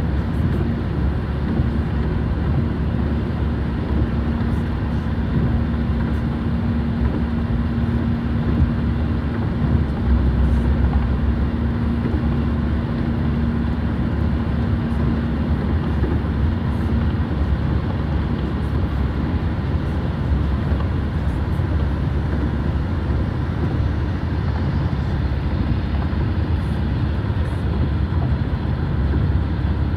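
Steady road and engine noise heard from inside a moving car's cabin, mostly low rumble. A low steady hum runs beneath it and stops about seventeen seconds in.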